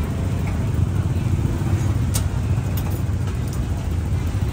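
Steady low rumble of road traffic, with a sharp knock about two seconds in.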